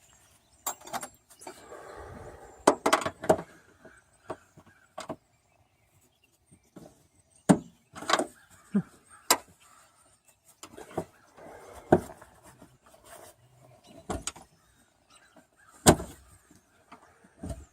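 Scattered clicks and knocks with a few short rubbing noises as a tool pries at the clips holding a Honda Civic Si's rear spoiler to the trunk lid, working the spoiler loose.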